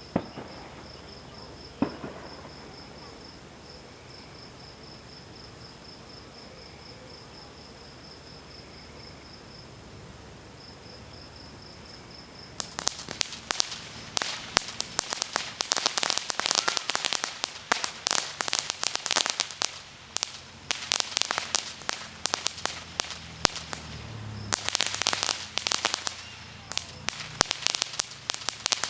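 Fireworks: two sharp bangs in the first two seconds, then about twelve seconds in a dense crackling of many rapid pops sets in and runs on, with a brief pause near the end before it resumes. Before the crackling, crickets chirp steadily in the background.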